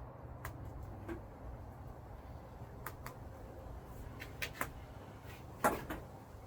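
Scattered light clicks and knocks from wire and hand tools being handled, with one louder clunk near the end, over a low steady hum.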